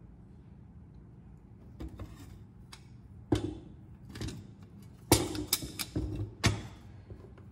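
Cast-iron crank frame of a hand-cranked ice cream freezer being handled on wooden blocks and a wooden table: a series of sharp metal-on-wood knocks and clunks, the loudest bunched together about five to six and a half seconds in.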